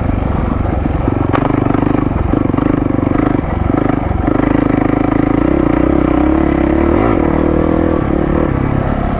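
Single-cylinder 450 cc four-stroke dirt bike engine running under way. The engine note breaks off briefly twice near the middle, then climbs in pitch a little later as the throttle is rolled on.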